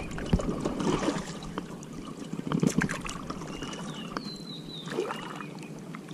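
Kayak paddle dipping into calm water, with irregular splashes and water trickling off the blade. A few faint, short high whistles come about three to four seconds in.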